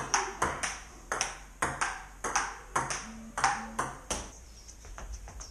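Table tennis ball rally: the celluloid ball clicking sharply off the paddle and bouncing on a wooden dining table about twice a second, the clicks stopping about four seconds in.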